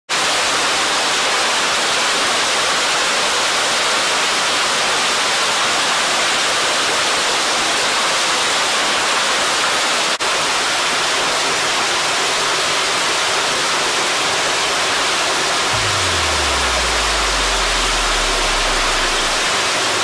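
Waterfall pouring down a narrow rock cleft onto the rocks below: a loud, steady rush of falling water, with a momentary break about halfway. Near the end a low tone slides down in pitch and then holds.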